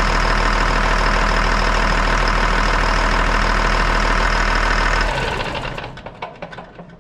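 An M1078 FMTV truck's Caterpillar inline-six diesel idling steadily, heard close up from the engine bay. About five seconds in it is shut off and runs down, fading out with a few scattered ticks.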